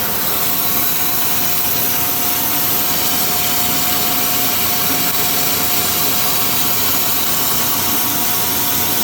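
Large dual-column horizontal bandsaw running and cutting metal stock with coolant flowing: an even, unbroken machine noise with a thin steady whine over it.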